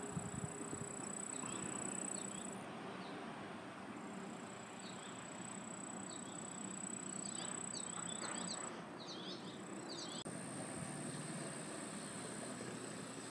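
Insects trilling in a steady, high pitch over outdoor background noise, with a cluster of short bird chirps in the middle.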